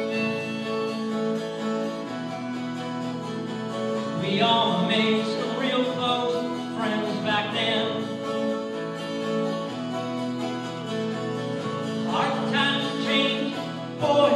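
Live music: a school band holding long steady chords under an amplified acoustic guitar. A voice sings a phrase about four seconds in and another near the end.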